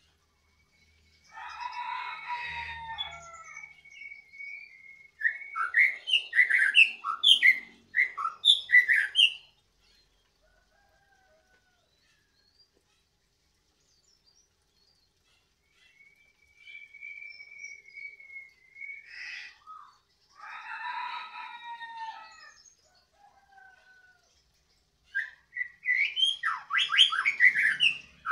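Captive-bred (F1) white-rumped shama (murai batu) singing loudly in phrases with pauses between them. The phrases mix long, clear held whistles with fast runs of varied notes, and the loudest rapid bursts come about six seconds in and again near the end.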